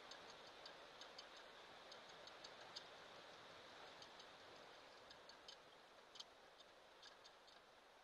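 Near silence: a faint steady hiss with short, sharp high-pitched ticks scattered irregularly through it, a few a second.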